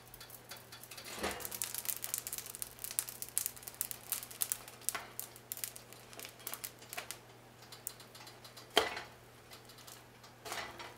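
A heavy cast iron lid is lifted off a hot cast iron skillet with a knock, then a pita whose bottom was wetted sizzles and crackles on the hot iron for several seconds where it has stuck. A sharp cast iron clank about nine seconds in is the loudest sound, with a lighter knock shortly after.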